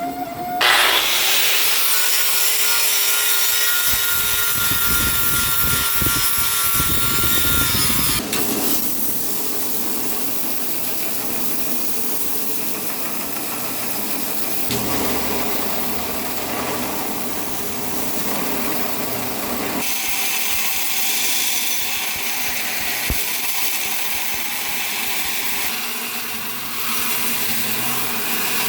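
Power tool grinding steel: a steady abrasive noise over a motor tone, starting just under a second in and changing character about 8 seconds in.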